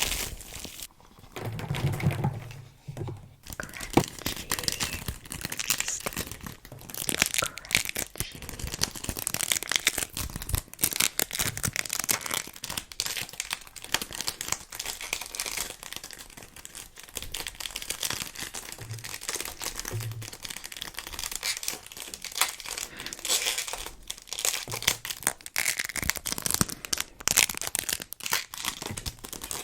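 Sticky play materials, play foam and/or sticky cubes, being squeezed and pulled apart by hand close to the microphone. They give a dense, continuous crackling and peeling with a few soft low thumps.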